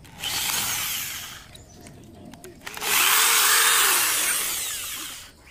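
Handheld power tool, such as a drill or grinder, run in two bursts: about a second and a half, then after a short pause about two and a half seconds. Each burst is a loud, hissing, high-pitched noise.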